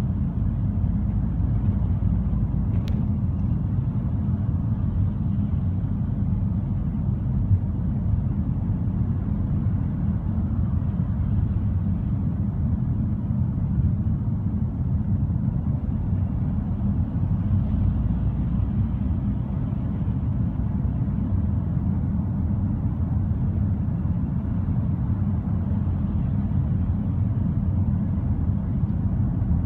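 Car driving, heard from inside the cabin: a steady low rumble of road and engine noise that stays even throughout. A faint click comes about three seconds in.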